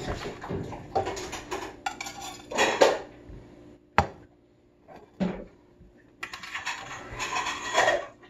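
Metal knife and server scraping and clinking against a baking dish and ceramic plate as a chicken pot pie is cut and a piece is lifted out. There are scraping bursts, two sharp clinks near the middle, then more scraping near the end.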